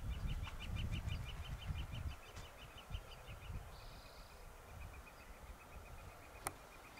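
A bird's rapid chattering call: short high notes at about eight a second, trailing off near the end. Low rumbling thumps in the first two seconds are the loudest sound, and a single sharp click comes near the end.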